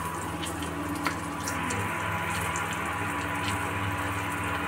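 Hot oil sizzling in a kadhai with freshly added coriander and turmeric powder and whole green chillies, the tempering (tadka) stage of the dish. The sizzle grows fuller about a second and a half in.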